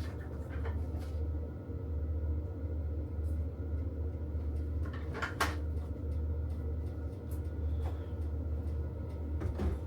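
A few sharp clicks and knocks of kitchen containers and utensils being handled, the loudest about five and a half seconds in, over a steady low hum.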